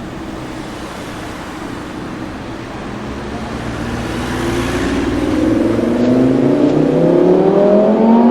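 Audi R8 V10 Plus's 5.2-litre V10 through a Capristo exhaust, accelerating. A low rumble for the first few seconds, then from about halfway the engine note climbs steadily in pitch and grows louder as the car pulls hard through the revs.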